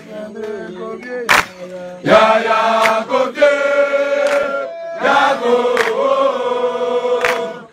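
A group of scouts chanting a song together in sustained, held phrases, with a few sharp hits cutting in.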